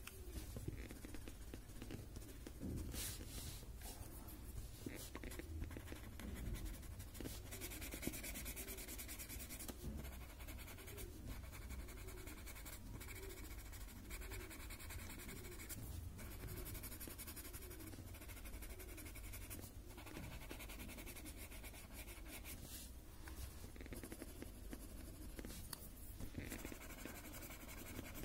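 Faint rubbing and scratching of a paper blending stump (tortillon) shading a graphite-drawn Zentangle paper tile, in soft, repeated strokes about once a second.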